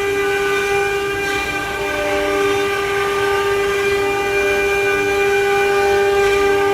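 CNC wood carving machine running, its spindle giving a steady whine, with fainter tones coming and going as the machine moves.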